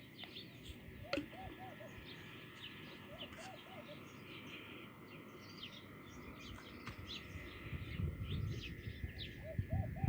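Doves cooing outdoors in repeated phrases of three or four short notes, with small birds chirping throughout. A low rumble comes in near the end.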